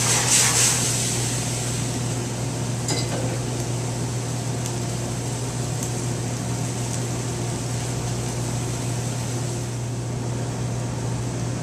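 Steady hum and rush of a commercial kitchen's gas range and ventilation, with a brief sizzle of chicken stock hitting the hot sauté pan of vegetables in the first second and a few light clinks of pans and utensils.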